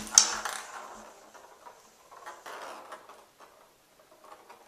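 Bengal kitten's paws and claws scrabbling and thumping on the surface of an empty bathtub as it tumbles after a ball. The scrabbling is loudest at the start and dies away, with a softer spell of scratching about two seconds in and faint ticks after.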